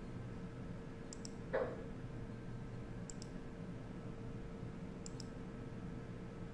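Computer mouse button clicks: three quick double clicks about two seconds apart as chart tabs are switched. Just after the first click comes a short dull knock, the loudest sound, over a faint steady hum.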